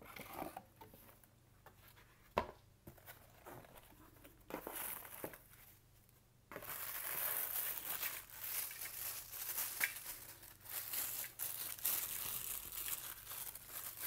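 Crumpled paper packing and a cardboard box being handled during unpacking: a few scattered light knocks and taps at first, then from about six and a half seconds in, continuous crinkling and rustling of paper.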